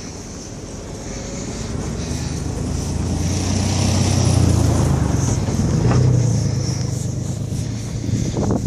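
A car driving past, its engine and tyre noise swelling to a peak midway and then fading away.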